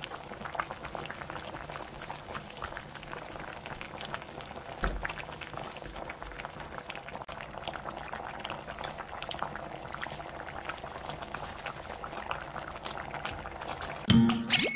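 Thick red chili-paste sauce of a spicy braised chicken stew bubbling in a pot, with many irregular small pops and splutters. Louder cheerful music starts abruptly just before the end.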